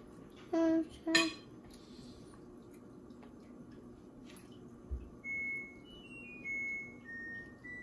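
A child's voice gives two short hummed notes, about half a second and a second in. A soft low bump comes near five seconds. From just after that, a slow tune of single high, pure notes follows one after another, stepping up and down in pitch.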